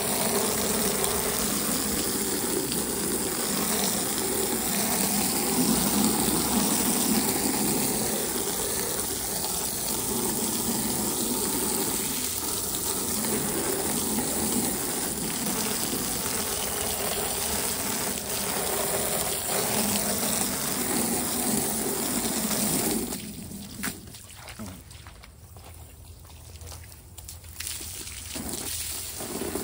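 Garden hose stream spraying onto a slotted plastic pool filter part and the concrete around it, a steady splashing rush of water. About three-quarters of the way through it drops much quieter for a few seconds, then picks up again near the end.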